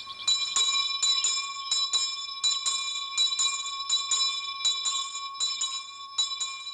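Electric school bell ringing continuously: a steady metallic ring with rapid repeated strikes.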